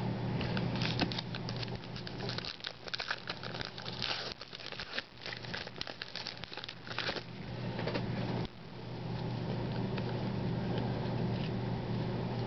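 Crinkling and tearing of a trading-card pack wrapper being opened and handled, a dense run of small crackles for most of the first seven seconds, then quieter rustling with a low steady hum.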